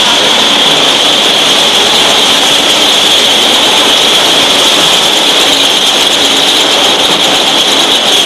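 Pilfer-proof cap making machinery running: a loud, steady mechanical noise with a high whine held throughout.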